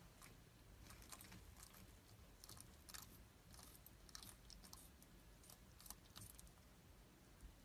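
Faint, irregular crisp crunches of a bearded dragon biting and chewing leafy greens.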